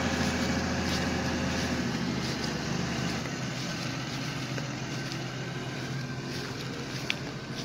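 Diesel farm tractor engine running steadily. Its deep low note drops away about two to three seconds in, leaving a lighter engine sound.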